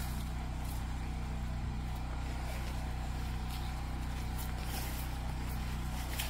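A steady, low engine hum that holds one pitch without rising or falling.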